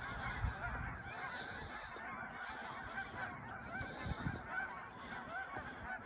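A large flock of Canada geese honking at a distance, many calls overlapping into a dense, continuous chorus.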